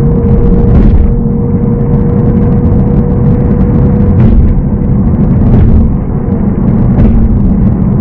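Road noise of a car driving at steady speed: a continuous low rumble of tyres and engine, with a faint steady hum that fades out about halfway through.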